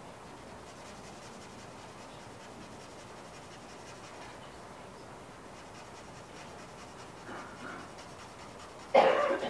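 Pencil scratching softly and steadily on a paper drawing pad as tone is shaded in. A sudden, short, loud sound comes near the end.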